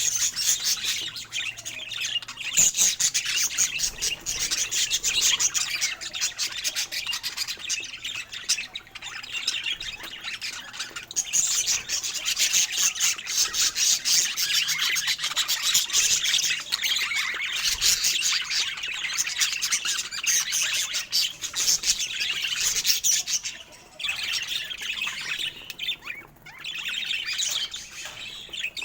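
Budgerigars chirping and warbling continuously in dense, rapid chatter, with occasional squawks.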